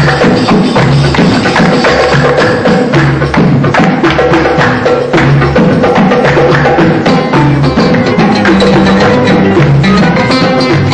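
Music with a steady bass beat and busy percussion.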